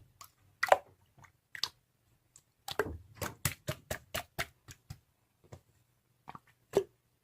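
A series of irregular short, sharp clicks, with a quick run of them about three to five seconds in and a few scattered ones after.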